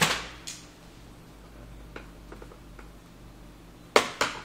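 Small plastic clicks and taps as the underside of a laptop and its hard-drive bay cover are handled with a screwdriver: a few faint ticks, then two sharp clacks near the end, over a low steady hum.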